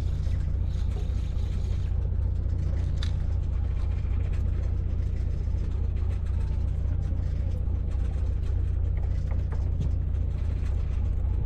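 A fishing boat's engine running steadily, a low, even drone with no change in pitch or level.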